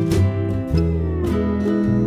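Background music led by guitar, plucked notes over a moving bass line, with one note sliding in pitch about a second in.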